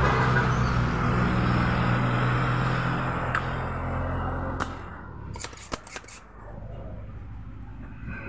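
A motor vehicle running past, loud at first and fading over the first four or five seconds, followed by a few sharp clicks at the workbench.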